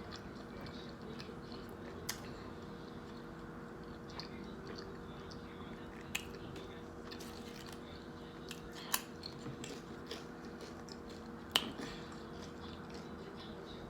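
Someone chewing a sandwich close to the microphone, with a few sharp mouth clicks spread through, over a steady low hum.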